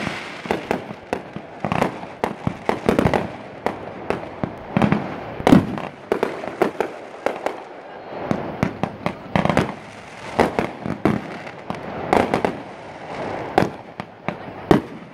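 Fireworks going off overhead: a rapid, irregular string of sharp bangs and crackles, several a second, some of the louder reports trailing off with a short echo.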